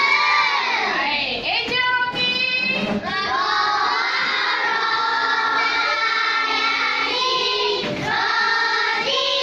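A class of young children singing together in unison, holding long notes.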